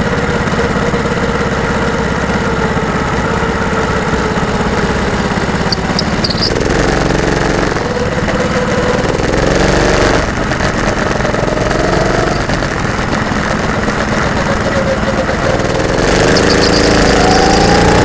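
Go-kart engine heard from onboard. Its pitch sinks slowly while the kart coasts, then rises twice as it accelerates: around the middle and again near the end.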